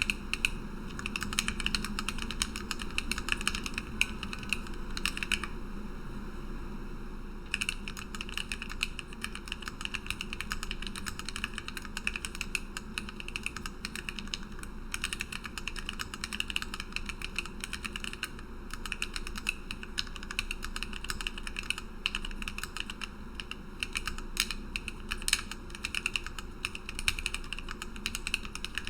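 Continuous fast typing on a Lily58 split mechanical keyboard with lubed Gateron Black Ink V2 linear switches, PBT OEM-profile keycaps and an acrylic plate and bottom. The keystrokes come in quick runs, with one pause of about two seconds about six seconds in.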